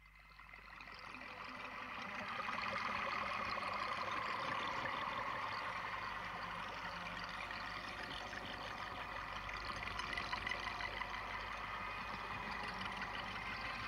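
Steady rolling hiss and rumble of small wheels on rough asphalt, fading in over the first two seconds and then holding even.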